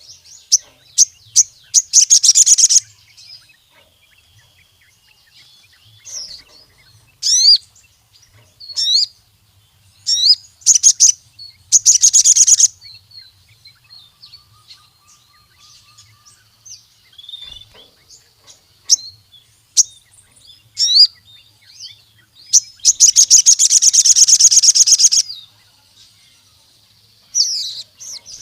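Crimson sunbird (sogon) singing: sharp, high chirps scattered between three very fast, buzzy trills, the last and longest running about two and a half seconds.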